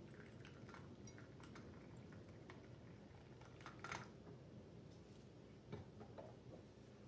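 Faint sound of tea pouring from a thin porcelain lusterware teapot into a teacup, with light ceramic clicks. A sharper clink about four seconds in as the teapot is set back down on its warmer stand.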